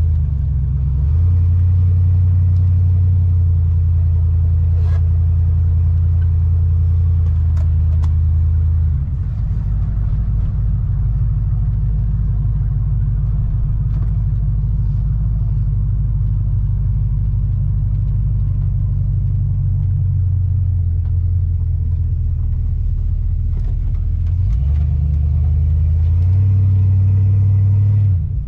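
Steady low engine and road rumble heard from inside a moving vehicle's cabin. The low hum drops in pitch about nine seconds in and climbs back up near the end.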